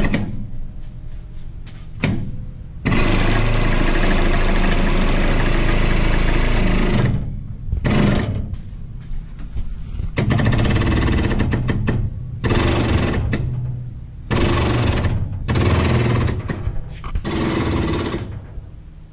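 Rolling bridge jack on a car lift raising a 1965 Chevy El Camino by its frame, its pump running loud in starts and stops: one long run of about four seconds, then five shorter runs of a second or two each.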